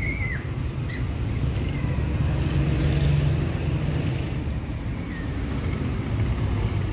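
City street traffic: a steady hum of car engines and tyres, swelling a little about three seconds in.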